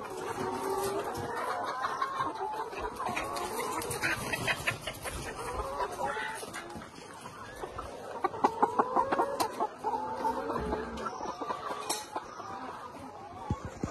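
Many animals calling at once: short, overlapping, wavering calls throughout, with a cluster of sharp clicks about two-thirds through.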